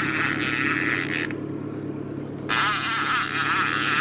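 A fishing reel's drag buzzing steadily as a hooked fish pulls line against it, over the steady hum of the boat's motor at trolling speed. The high buzz stops for about a second in the middle, then resumes.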